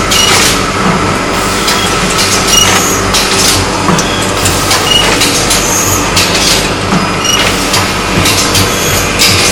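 HM-ZD240 automatic rigid box making machine running: a steady clatter of its moving parts, with sharp clacks repeating every half second or so over a steady low hum.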